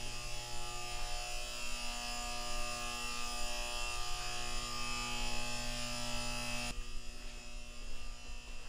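Steady electrical mains hum and buzz, many layered tones with a high hiss above them, from powered equipment. Most of it cuts off suddenly about seven seconds in, leaving a fainter low hum.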